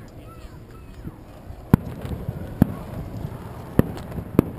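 Fireworks going off: four sharp bangs at uneven intervals, about a second apart.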